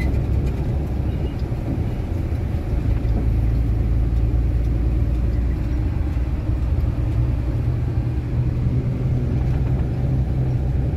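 Heavy truck's engine and road noise while driving: a steady low rumble.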